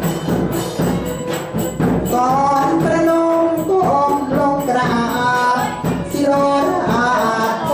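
A male Thai ceremonial singer performing lae, a drawn-out, ornamented sung recitation, into a microphone over instrumental accompaniment with a jingling percussion; the sliding melodic vocal line comes in about two seconds in.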